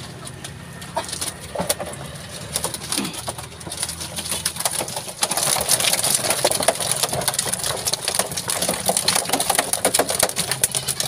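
Live pangasius catfish splashing and thrashing in water as a netful is tipped into a plastic drum. A dense crackle of splashes starts about five seconds in, over a steady low hum.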